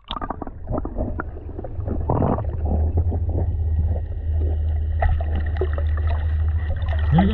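Muffled underwater noise picked up by an action camera held under the surface of a spring: a steady low rumble with scattered clicks and knocks, and a short louder rush about two seconds in.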